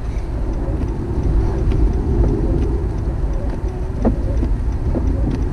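Steady low rumble of a car driving on an uncleared, snow-covered highway, heard from inside the cabin, with a couple of short clicks about four and five seconds in.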